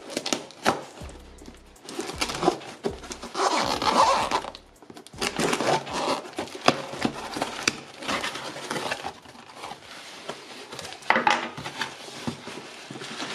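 Knife blade slitting packing tape along a cardboard box seam, then the tape ripping and peeling away and the cardboard flaps scraping and crinkling, with scattered taps and rasps.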